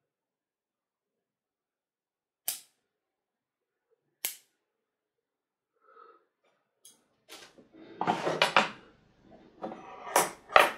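Pruning shears snipping through thin Japanese maple branches: two sharp cuts about two seconds apart. Then a few seconds of rustling and knocking as the cut branches are handled, with two more sharp clacks near the end.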